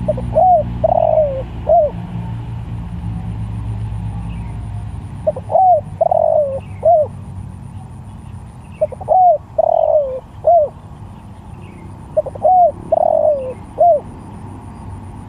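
Spotted dove (tekukur) cooing its song four times, evenly spaced. Each phrase is a couple of quick short coos, a longer falling coo, then one short closing note.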